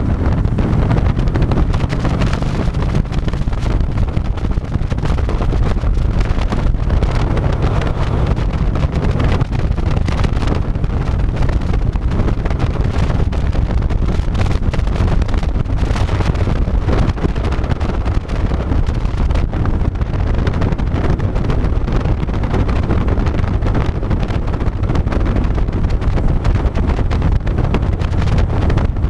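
Harley-Davidson V-twin motorcycle running at road speed under heavy wind noise on the microphone, a steady low rumble and rush with no letting up.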